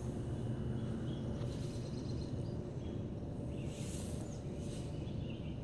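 Outdoor ambience: a steady low rumble with a few faint, high chirps, about a second and a half in and again around four seconds in.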